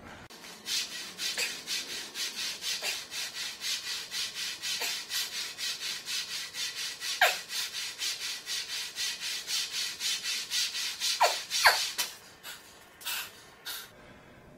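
Fast, even, raspy hissing strokes, about four or five a second, from a barbell-row set played back at triple speed. A few brief sliding squeaks come through near the middle and toward the end, and the strokes stop near the end.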